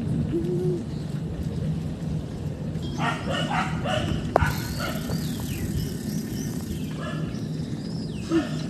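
A dog barking, a quick run of barks about three seconds in and a few more near the end, over steady low background noise.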